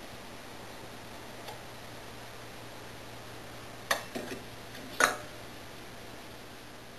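Sharp metallic clicks of a Hettich Rotofix 32A centrifuge rotor and its fittings being handled and seated: a faint tick early, a loud click about four seconds in followed by two lighter taps, then the loudest click about a second later with a brief ring.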